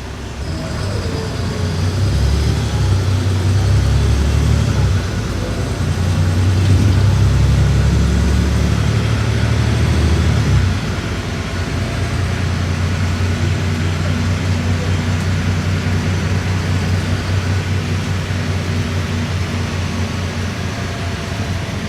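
City bus engine and drivetrain heard from inside the passenger cabin, pulling hard under load for several seconds. About ten seconds in it drops suddenly to a lower, steady drone as the bus eases off and rolls on.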